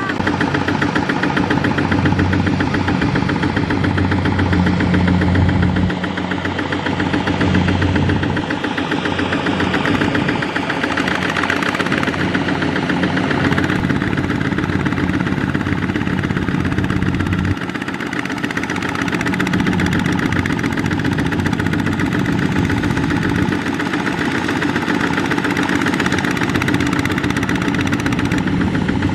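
Kubota ZT140 single-cylinder diesel engine of a two-wheel walking tractor running hard under load, hauling a loaded trailer through deep mud, with a rapid, even firing beat. Its note shifts a couple of times, about six seconds in and again past halfway.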